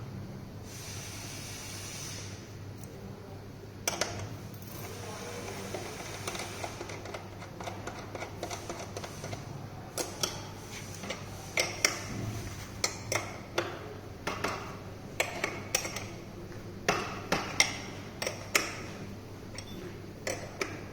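Scattered sharp clicks and light metallic taps of small tools and parts being handled during a sensor replacement on an e-bike. The taps come thicker and louder in the second half, over a steady low hum.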